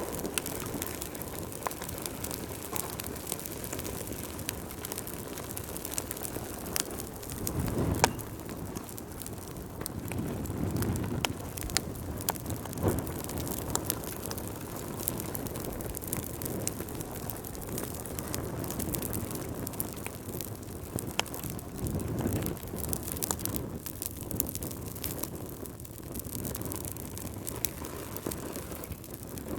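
Wood fire burning in a fireplace, crackling with many sharp pops at irregular times over a steady hiss, with a few brief low whooshes of flame.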